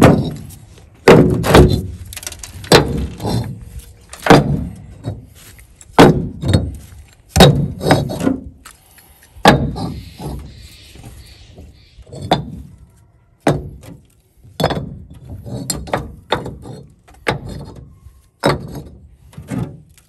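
Hollow-cored clay bricks being set down one after another onto a stack on a pickup truck's bed liner: a string of irregular hard knocks and clunks, often coming in pairs.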